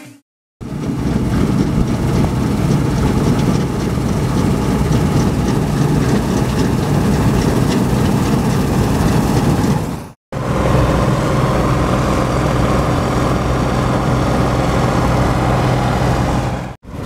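Bizon Z056 combine harvester's six-cylinder diesel running steadily under load while cutting and threshing triticale: an even engine drone under the rattle of the header and threshing gear. The sound cuts out briefly about ten seconds in and again near the end.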